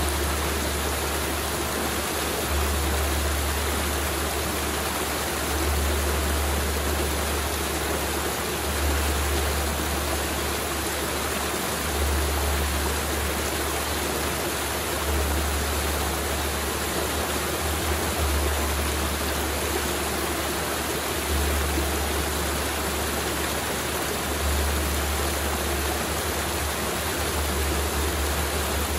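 Mountain river flowing steadily, with a low rumble that comes and goes every three seconds or so.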